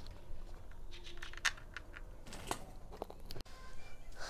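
A few light clicks and taps of hand work on a small outboard motor's engine as bolts are fitted, over a low steady hum.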